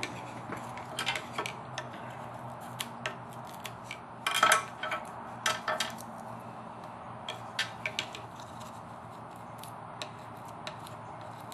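Tape being peeled and pulled off stacked scroll-sawn wooden pieces by hand: irregular small crackles and clicks, with a louder cluster of crackling about four and a half seconds in and again a second later, over a low steady hum.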